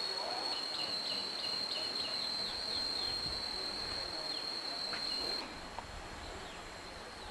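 Steady high-pitched drone of insects, with a bird's run of quick falling chirps, about three or four a second, from about one to three seconds in. The drone drops sharply in level a little past five seconds.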